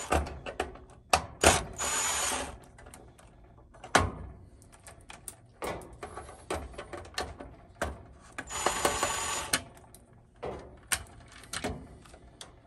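Ryobi cordless drill/driver running in short bursts to back out the Phillips screws holding an oven control board; the two longest runs last about a second each, with a thin high whine. Sharp clicks and knocks of handling between the runs.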